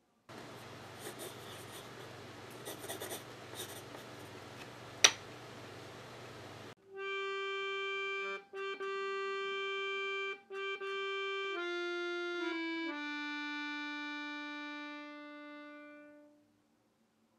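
A steady hiss with scattered clicks and one sharp click about five seconds in, then an accordion plays long held notes that step down in pitch and fade out.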